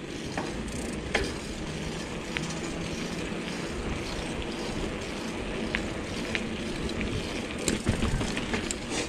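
Bicycle rolling along a rough, patched asphalt lane: a steady rumble of tyre and wind noise, with scattered sharp clicks and rattles.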